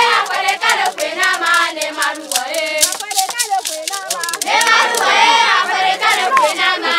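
A group of voices singing an Ewe song together, over quick hand claps and stick strokes on Ewe barrel drums.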